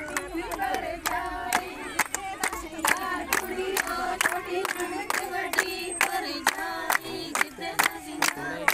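A group of women singing Punjabi folk boliyan in chorus for giddha, over steady rhythmic hand clapping of about two to three claps a second.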